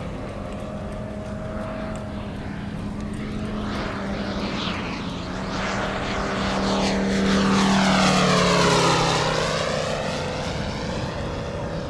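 Giant-scale radio-control F4F Wildcat's Moki 250 radial engine running at steady power as the plane flies past. It grows louder to a peak about eight or nine seconds in, then its pitch drops as the plane passes and moves away.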